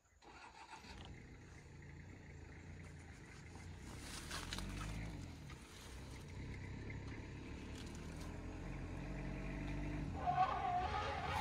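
A vehicle's engine running and drawing nearer, its pitch rising and falling as it grows gradually louder. A brief, wavering higher-pitched sound comes near the end.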